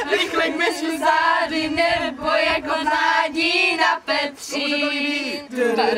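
A group of girls singing together in unison, with held notes and a brief pause between phrases about four seconds in.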